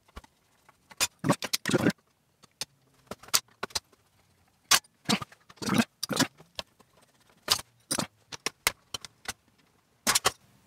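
Metal hand tools (a wrench, a screwdriver and pliers) clicking and clinking against the element terminal connections of a Skutt 231 kiln's control box as they are undone, in irregular clusters of short metallic clatters.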